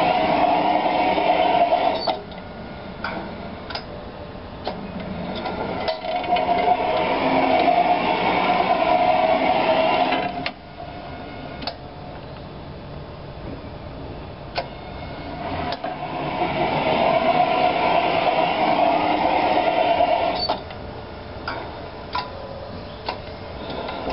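Hayashi Yakuhin Kikai tablet bucket lifter working through its lift cycles. Its drive runs with a steady whine that swells in over a few seconds and then cuts off. Sharp clicks and knocks from the bucket mechanism fill each pause, and the drive runs twice more.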